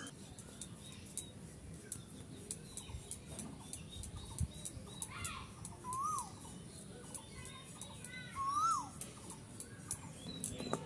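A bird calling a few times with short whistled notes that rise and then fall, mostly in the second half. Under it, faint scraping clicks of a potato being pared against a boti blade.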